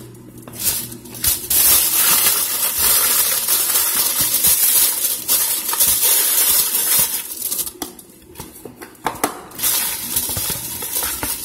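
Aluminum foil crinkling and crackling as it is crumpled and pressed into a bowl, with a quieter spell about eight seconds in.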